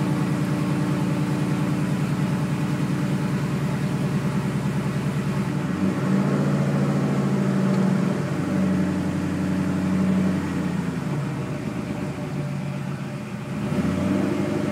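LS1 V8 engine running roughly, with an uneven, stumbling beat; the owner takes it for a misfire that sets no misfire code. The revs rise a little about six seconds in, drop back after a couple of seconds, and rise again near the end.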